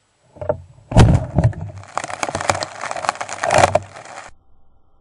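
Water bottle rocket launching from a cable-tie release launcher: a sudden loud blast of pressurised water and air about a second in, then about three seconds of hissing, crackling spray that cuts off suddenly.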